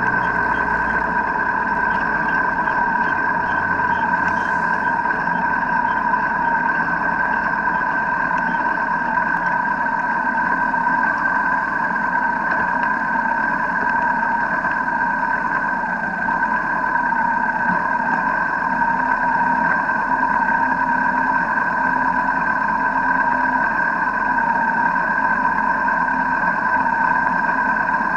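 Motorcycle engines of a group of bikes running, moving at first and then idling in a stopped line, with a steady high whine over them.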